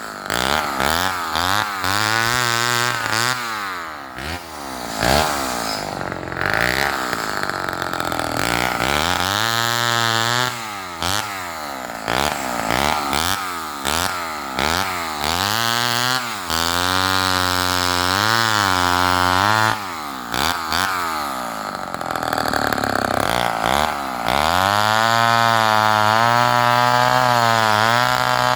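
Homelite XL-12 two-stroke chainsaw with a 20-inch bow bar, revved up and down repeatedly, now and then held at high speed for a few seconds at a time.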